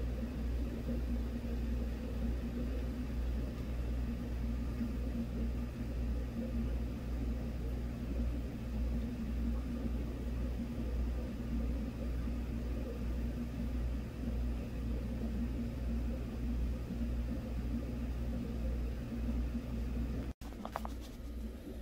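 Steady low hum and rumble of aquarium sponge filters bubbling in the tanks, with a brief dropout near the end.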